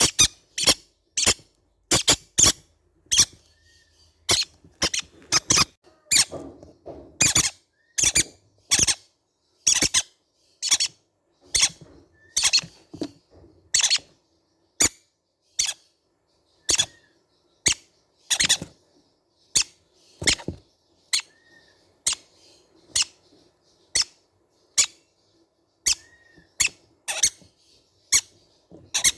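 Baby green-cheeked conures giving short, shrill squeaking calls over and over, about one or two a second.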